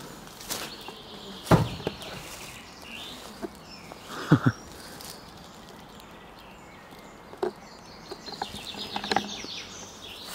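Footsteps and rustling through tall grass and undergrowth, with a few sharp knocks, the loudest about one and a half seconds in and just after four seconds.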